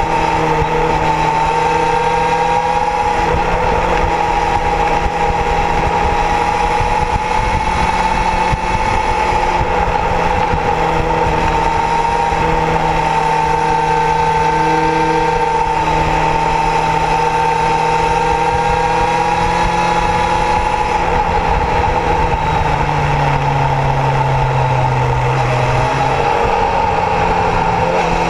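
Kawasaki Zephyr's air-cooled inline-four engine running steadily while riding. The engine note drops lower for a few seconds near the end, then comes back up.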